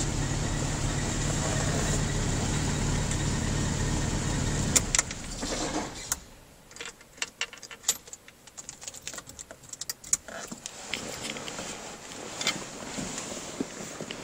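1954 Bentley R Type's 4.5-litre inline six-cylinder engine idling steadily, heard from inside the cabin, then cut off after a click about five seconds in. After that, only scattered light clicks and knocks.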